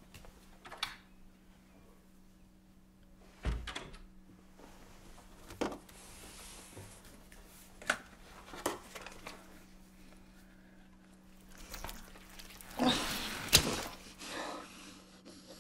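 Steady low hum of an open refrigerator, with scattered small clicks and rustles of things being moved about inside it and a dull thump about three and a half seconds in. Near the end comes a louder stretch of rustling with a sharp click, as raw chicken is handled and eaten out of its plastic packaging.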